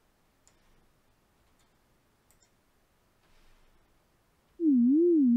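A few faint clicks, then about 4.6 s in a software synthesizer's sine-wave note starts. Its pitch wobbles up and down like a siren about twice a second: frequency modulation of the note by a low-frequency oscillator, set to a reduced depth so it sounds less harsh.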